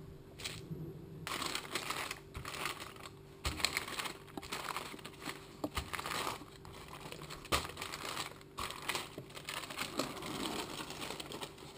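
Parchment paper crinkling and rustling as a wooden rolling pin rolls a soft paste flat between two sheets, starting about a second in, with a few light taps.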